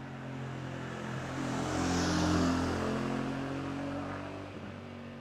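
Royal Enfield Shotgun 650's 648cc parallel-twin engine running at a steady speed while the bike is ridden. A broad rush of noise swells and fades, loudest about two and a half seconds in.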